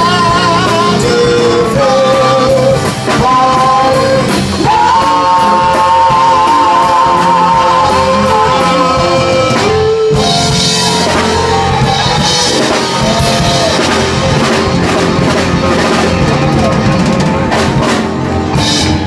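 Loud live band playing: a singer holding long notes with vibrato over electric guitar and a drum kit with cymbals.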